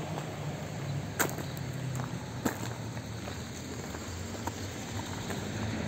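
Outdoor ambience: a steady low hum with an even background hiss, broken by a few sharp clicks, the clearest about a second in and again about two and a half seconds in.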